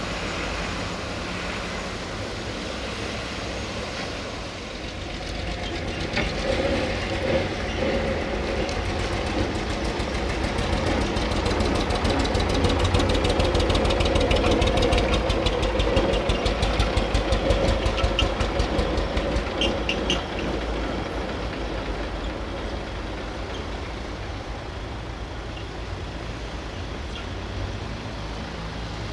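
A three-axle dump truck's diesel engine passing by: it grows louder, is loudest near the middle with a rapid, even engine beat, then fades as the truck moves away.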